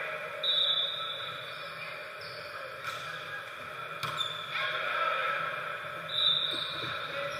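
Volleyball rally on a hardwood gym floor: two sharp smacks of hands on the ball, a little under three seconds in and about four seconds in, with short high squeaks of sneakers on the floor near the start and near the end, and players' voices.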